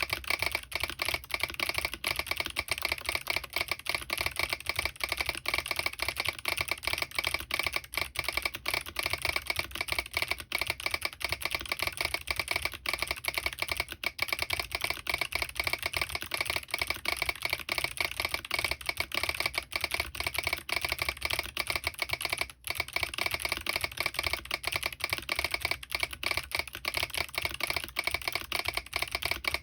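Fast, continuous typing on a Smurve80 mechanical keyboard with clicky Kailh Box Jade switches lubed with Krytox, Signature Plastics DCS keycaps and an aluminium plate with no foam, its solenoid switched on. The clicks run without stopping, apart from a brief pause about two-thirds of the way through.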